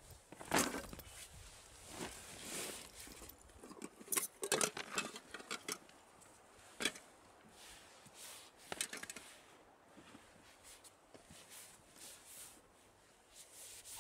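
Rustling of a quilted nylon jacket as someone moves about while handling camping gear, in irregular bursts with a few light knocks and clinks as items are set down.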